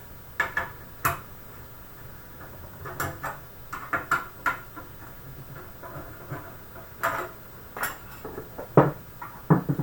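Scattered metal clicks and knocks, with handling noise between, as an expansion-slot bracket is worked loose and removed from a PC case.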